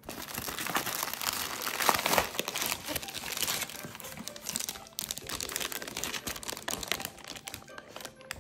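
Plastic packaging crinkling and crackling as it is handled: a plastic bag and bubble wrap being pulled out of a cardboard box. The crackle is dense and continuous, with a brief lull about five seconds in.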